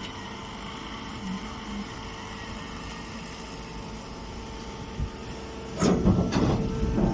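Hydraulic grass baler running with a steady motor and pump hum. About six seconds in, a louder, rough clattering noise sets in.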